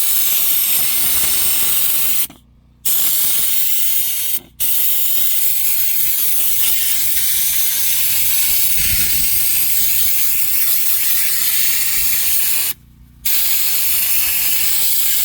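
Compressed-air spray gun spraying Lizard Skin sound-deadening coating: a loud steady hiss that cuts off sharply for three short breaks as the trigger is let go, then stops at the end.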